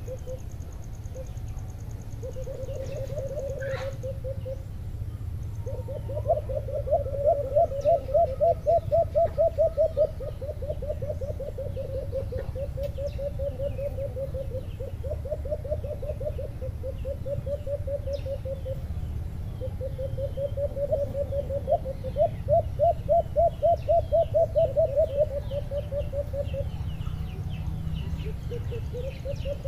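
Caged decoy alimokon doves calling: long strings of rapid, low hooting notes, one string after another, with two louder strings that rise a little in pitch. Faint chirps of small birds come in near the end.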